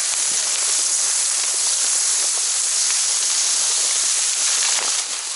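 Dense, continuous rustling and crackling of tall marsh grass and reeds as someone pushes through them on foot. It cuts off abruptly at the end.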